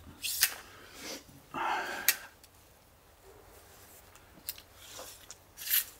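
Faint handling clicks and jacket rustle from a person fiddling with a small object, with a breathy exhale about a second and a half in.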